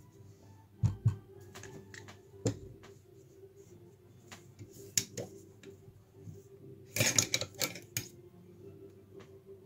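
Clicks and knocks of metal rifle parts being handled as a SIG Sauer 516 Patrol upper receiver is stripped and its short-stroke gas piston rod is drawn out. There are single knocks at scattered moments and a quick burst of metallic clicking about seven seconds in.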